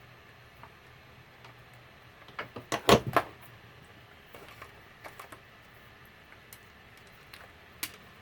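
Clicks and knocks of small plastic and metal parts being handled and pried apart during the teardown of an old electronic label machine, with a cluster of louder knocks about three seconds in.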